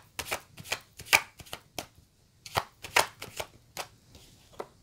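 A deck of tarot cards being shuffled and handled by hand: an irregular run of sharp card snaps and taps, about a dozen, with short pauses between them.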